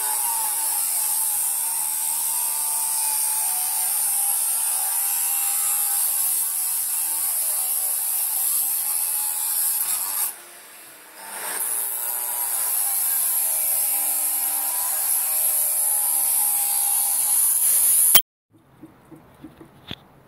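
Angle grinder with a cutting disc cutting into a steel window frame: a steady motor whine with a loud, high grinding hiss. It eases off briefly about ten seconds in, then bites again, and stops abruptly near the end.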